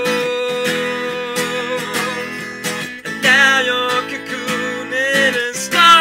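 Steel-string acoustic guitar strummed steadily, with a man singing over it: a long held note at the start, then short sung phrases with vibrato.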